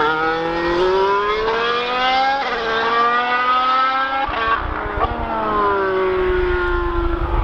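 Lotus Formula One car's engine accelerating: a high engine note climbing in pitch, dropping sharply at an upshift about two and a half seconds in, climbing again, then sliding steadily lower over the last three seconds.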